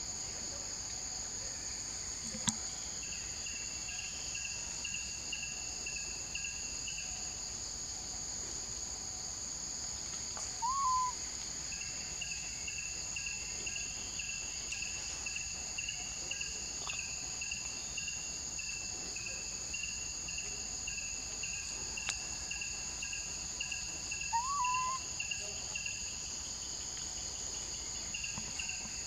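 Steady insect chorus: a continuous high drone with a pulsing trill beneath it. Twice, about 11 and 25 seconds in, a short rising call stands out above it.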